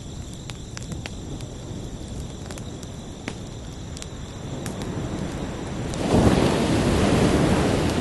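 Ocean wave surging in: the surf sound builds from about halfway, breaks loudest about six seconds in and begins to wash back, over a steady high cricket trill.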